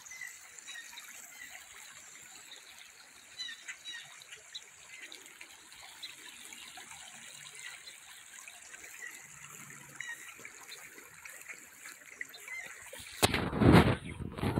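Shallow river running over a stony riffle: a faint, steady rush of water. Near the end, a brief loud burst of low noise hits the microphone.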